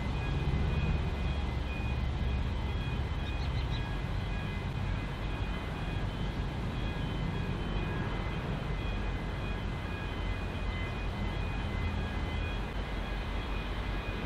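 V/Line N class diesel locomotive (EMD two-stroke V12) running steadily: a continuous low rumble with a few faint, steady high-pitched tones above it.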